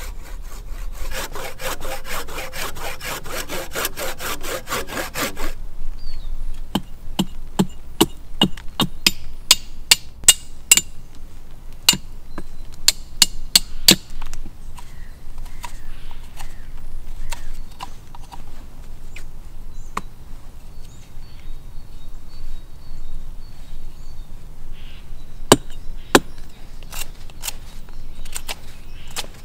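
A hand saw cuts a branch in rapid back-and-forth strokes for about five seconds. Then comes a series of sharp knocks as a mallet drives a cleaver down through a section of log to split it. After that, a knife scrapes quietly as it carves a stick, with a few more knocks near the end.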